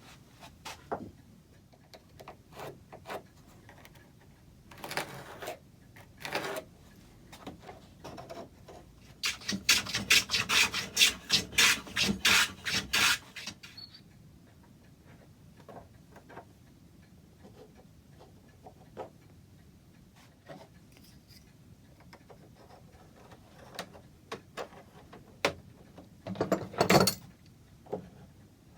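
Wood being worked by hand with quick rubbing strokes, a dense run of about four seconds in the middle and a shorter run near the end, with scattered light knocks and handling clicks in between.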